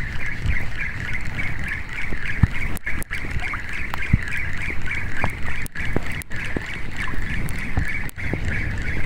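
Mavllos Greek 1000 spinning reel being cranked to retrieve a lure on an ultralight rod: a steady, fast-pulsing whir. A low rumble and a few soft knocks run underneath.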